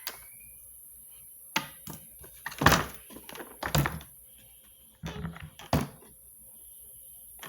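Irregular knocks, clicks and thunks of Miele vacuum cleaner parts being handled during a repair, about half a dozen in all, the loudest about two and a half seconds in.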